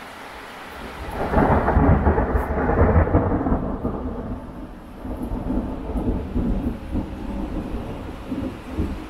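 Thunder over steady rain: a loud roll breaks out about a second in, crackles for a couple of seconds and then rumbles on, slowly fading. The hiss of rain runs beneath it.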